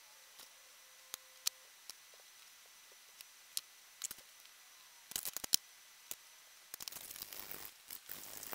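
Scattered light clicks and taps as the handle grips and marker are handled on a cutting mat. Near the end, a hand file starts scraping back and forth across the edge of an aluminium receiver held in a vise.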